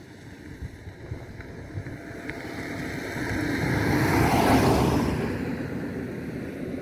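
Wind gusting over the microphone and through the grass, a rushing noise with low buffeting that swells to its loudest a little past halfway and then eases off.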